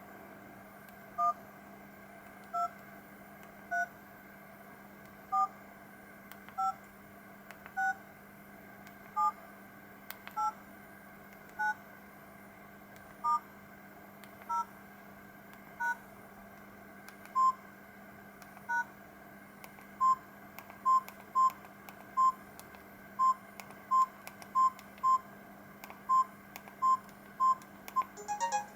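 Samsung SGH-C270 mobile phone keypad tones: twelve short two-note DTMF beeps, one per key pressed in turn about every second and a half. In the second half a faster, uneven run of short single-pitch key beeps follows, with a quick falling chirp near the end.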